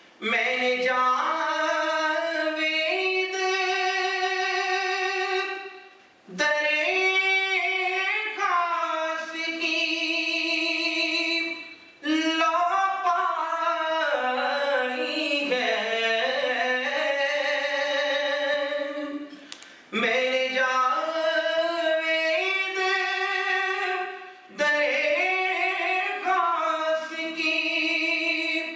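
A man singing solo into a microphone without accompaniment: long, held, wavering phrases, five of them, each ending in a short pause for breath.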